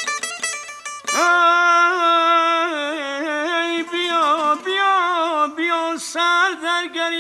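Iranian regional folk music: a long-necked lute is plucked in a rapid run of repeated strokes, then carries on in shorter notes under a held, pitched melody line with ornamented slides, which starts about a second in.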